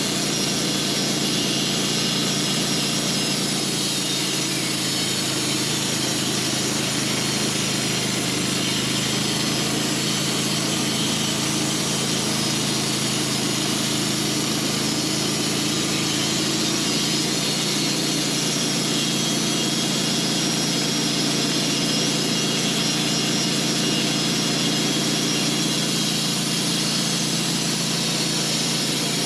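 Sawmill engine running steadily at full speed with an even, unchanging pitch while the blade cuts through a large honey locust log.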